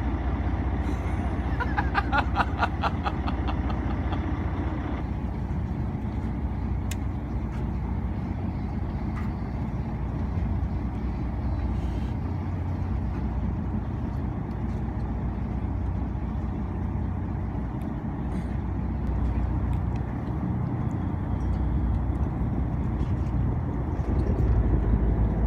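Fishing boat's engine running steadily with a low rumble, with a brief rapid clicking about two seconds in.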